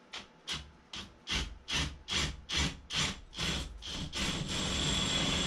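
Cordless drill turning a masonry hole saw in reverse against the wall's masonry skim coat to get the hole started: a rhythmic scraping of about two or three strokes a second. About four seconds in it becomes a steadier rasp with a thin motor whine.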